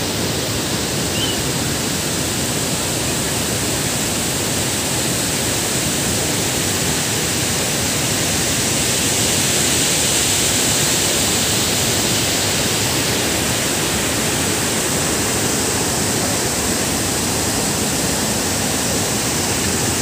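Steady rush of whitewater rapids at a waterfall, a continuous even roar of churning water.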